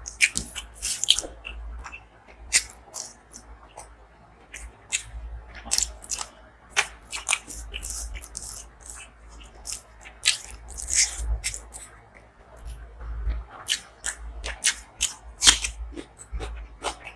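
Close-miked eating: a person biting and chewing crunchy food, with irregular sharp crunches and wet mouth clicks over a low steady hum.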